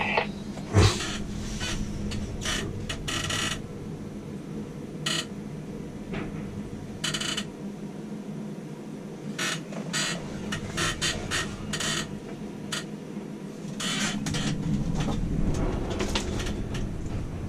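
Tower crane machinery running with a steady low hum while a load is lowered, with scattered short clicks and knocks and a single thump about a second in. The hum grows louder near the end.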